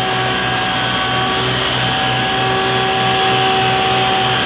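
Water tanker truck running its pump to feed a roof-mounted water cannon spraying a jet: a steady rushing hiss with a constant whine and a low throb pulsing about twice a second.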